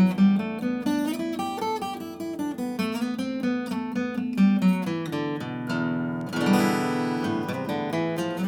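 Vintage Japanese acoustic guitar being played solo, a continuous run of plucked notes and chords over ringing bass notes.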